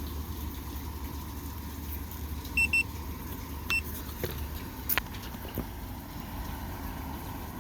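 A fiber fusion splicer gives two quick high beeps and then a single beep a second later, its signal for a step of the splice; a sharp click follows, all over a steady low engine-like rumble.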